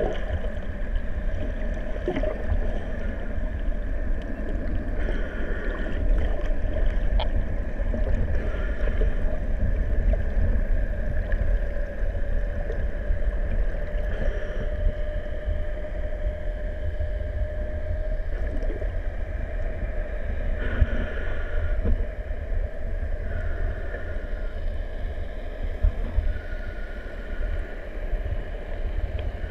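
Underwater recording dominated by a heavy low rumble and a steady drone, typical of a boat's engine heard through the water, with a higher hum that comes and goes every few seconds.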